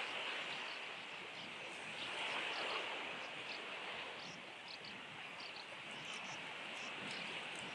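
Sand martins (chicks at the nest burrows) giving scattered short, high twittering chirps over a steady hiss of background noise.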